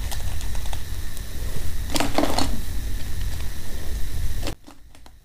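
Crisp clicking and crackling of dried red chillies being picked up by hand from a plate of rice, with a denser crackle about two seconds in. A steady background hiss and low rumble runs beneath and cuts off suddenly near the end.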